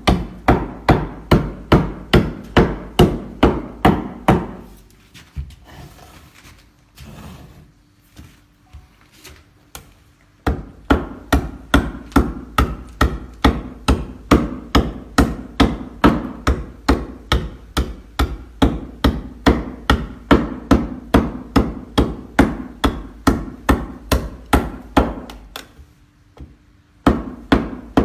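Hand adze chopping into a wooden board, quick repeated strikes at about three a second. The chopping stops a few seconds in, starts again about ten seconds in and runs steadily, then breaks off briefly near the end before a few more strikes.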